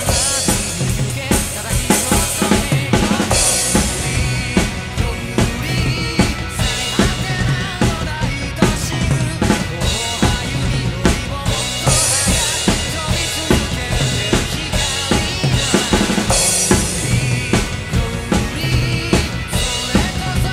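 Acoustic drum kit, a Pearl kit with Sabian cymbals, played in a driving rock beat along with a rock band recording. Kick, snare and repeated cymbal crashes sit over the band's guitars and singing.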